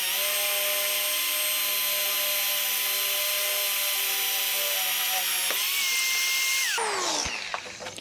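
Corded DeWalt electric drill running steadily as its bit bores into the steel frame of a motorhome; the bit is dull from repeated use. The motor's pitch steps up about five and a half seconds in, then it spins down just before seven seconds.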